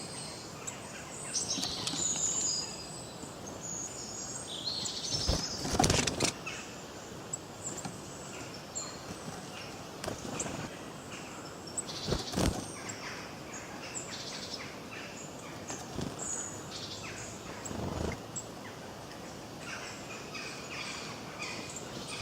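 A chorus of wild songbirds chirping and twittering, many short high calls overlapping. A few sharp knocks or thumps break in, the loudest about six seconds in and again about twelve seconds in.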